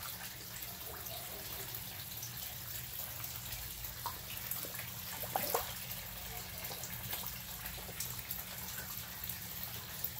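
Koi pond water trickling steadily, with small splashes and slurps as koi feed at the surface; one splash about five and a half seconds in stands out.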